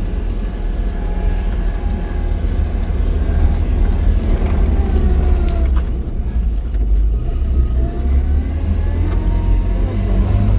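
A car driving: a steady low rumble of engine and road noise, the engine's pitch dipping and rising as the car changes speed.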